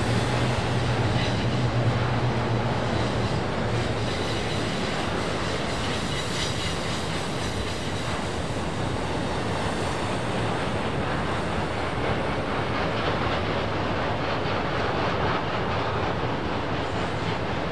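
A train rolling past, its noise steady throughout, with a low hum in the first few seconds that fades out.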